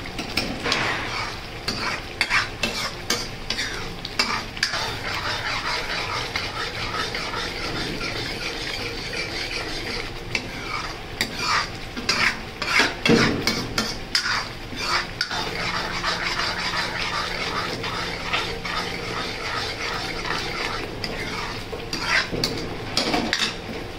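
Thick masala paste sizzling and bubbling in a steel kadhai as it cooks down, with a metal ladle stirring and scraping against the pan in irregular clicks and scrapes.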